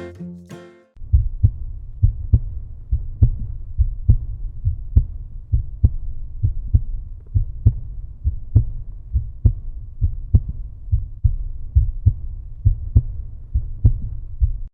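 Outro music: a brief plucked and bowed string phrase, then from about a second in a steady low thumping beat with little above the bass, cutting off abruptly.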